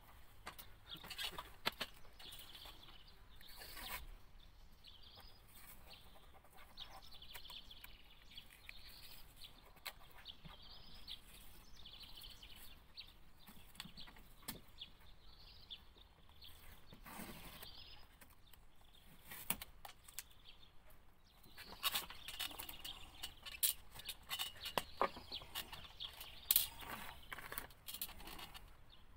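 Scattered clicks, taps and rustles of hands working with tape and trim on a motorhome's plastic overcab, busier near the end, over a faint high chirping in the background.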